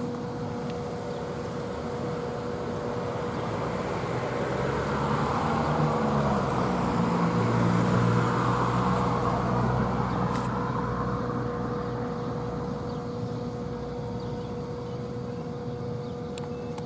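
A motor vehicle passes by, growing louder to a peak about eight seconds in and then fading, with its engine note shifting as it goes. Under it sits a steady two-note tone that does not change.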